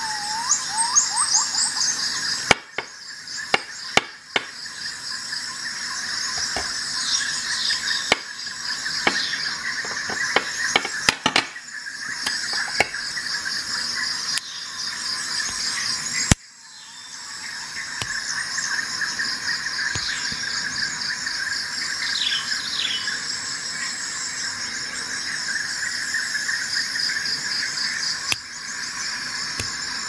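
A steady, high-pitched chorus of insects with a few short falling bird chirps, broken by a handful of sharp clicks, the loudest a cluster in the first half and one about 16 seconds in.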